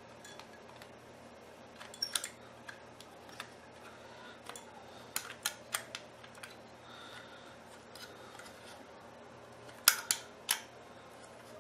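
Handling noises of a bullet surveillance camera being turned and seated on its mounting base: scattered sharp clicks and taps, coming in small clusters, with the loudest group of three about ten seconds in.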